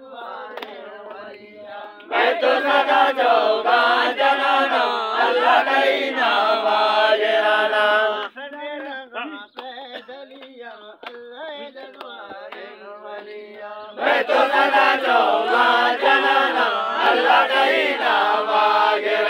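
A group chanting a devotional song in call and response: a single voice leads quietly, then the crowd answers together loudly, twice, for about six seconds each time. Handclaps sound in the quieter stretches.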